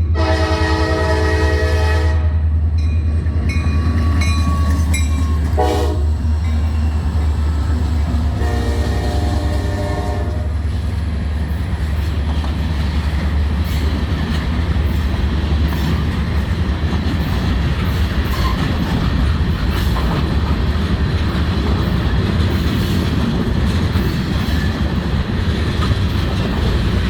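Train whistle blowing: a long chord-like blast, then several short toots, and a second blast about nine seconds in. The low rumble of the moving train goes on after the whistle stops.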